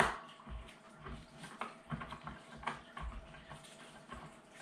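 A sharp metal click, then scattered light clicks and ticks as the threaded rod of a spring compressor is turned by hand, slowly releasing the piston spring in a break-barrel air rifle.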